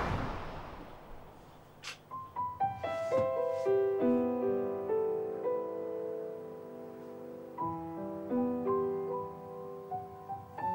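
Soft, slow piano background music, its notes entering one by one about two seconds in. It opens on a fading swell of noise.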